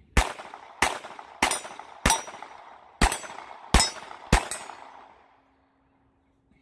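Seven pistol shots fired at steel plate targets: four shots about two-thirds of a second apart, a pause of about a second, then three more at the same pace, each followed by a short echo.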